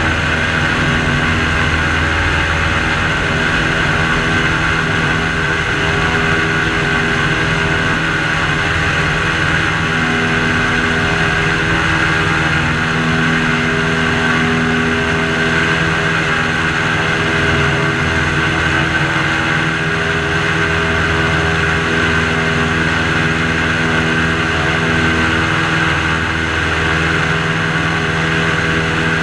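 Airboat engine and propeller running steadily at cruising speed, an even drone that holds its pitch throughout.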